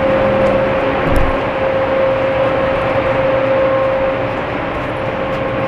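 Steady running noise of a warship's machinery, with a constant hum held on one note; a single thump about a second in.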